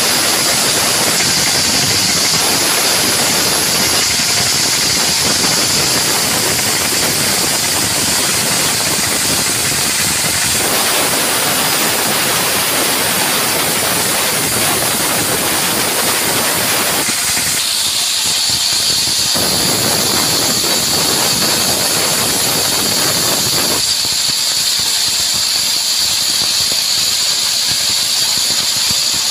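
Band sawmill running and sawing a mahogany log: a loud, steady hiss with a high whine. Twice, about two thirds of the way through and again near the end, the lower noise drops away and leaves mostly the high whine.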